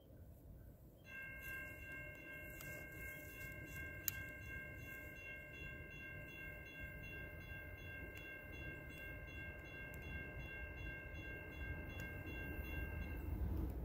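Faint, distant freight locomotive horn held in one long steady chord for about twelve seconds, stopping shortly before the end, as a train approaches from far off. A single sharp click about four seconds in.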